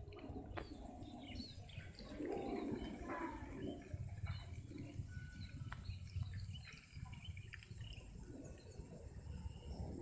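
Small birds chirping in short, scattered calls, over a steady high-pitched insect drone and a low, uneven rumble.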